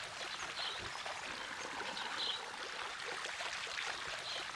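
Water pouring steadily from the open end of a metal pipe and splashing.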